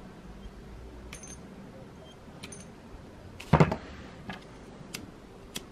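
Small clicks and rustles of a cable and wire stripper being handled, with one louder clatter about three and a half seconds in as the metal wire stripper is set down on the wooden table.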